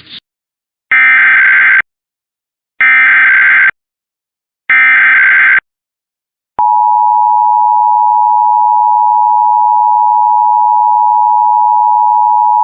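Emergency Alert System SAME header: three short bursts of warbling data tones, each about a second long and a second apart. About six and a half seconds in they are followed by the EAS attention signal, a steady two-tone beep of 853 and 960 Hz, announcing the next required monthly test.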